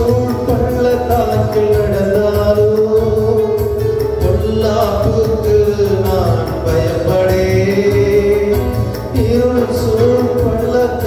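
A man singing a hymn into a microphone in long, held melodic phrases, with instrumental accompaniment.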